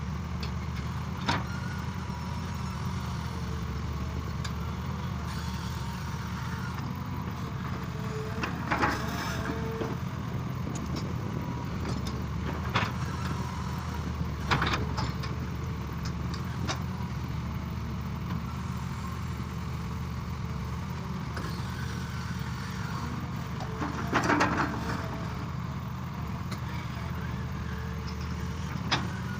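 Excavator engine running steadily with a low drone, broken about six times by short sharp knocks or clanks.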